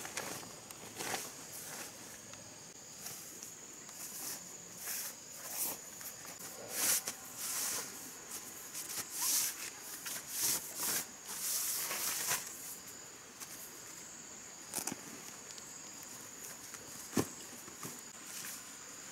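A ground mat rustling in bursts as it is smoothed and handled by hand, over a steady high drone of insects. A single sharp click near the end.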